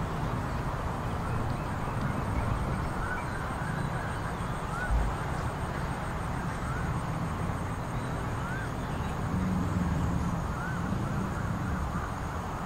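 Steady rumble of city traffic, with a short rising-and-falling chirp repeating every second or two.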